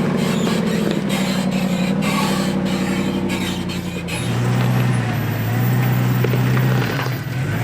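Off-road 4x4's engine running at low revs as it crawls slowly over rock, with a run of clicks over the first few seconds. The engine note shifts and grows fuller about four seconds in as the throttle changes.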